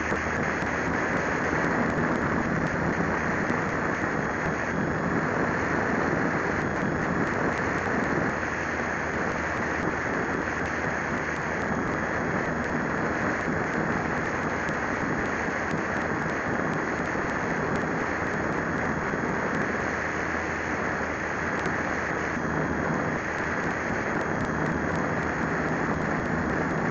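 Steady rush of wind and the motor and propeller of an Old Fogey RC plane in flight, picked up by the tiny microphone of a Syma X5C camera mounted on the plane.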